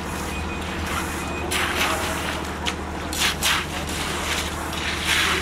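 Concrete pump truck's engine running steadily under short scraping strokes of rakes pulled through wet concrete, with faint voices.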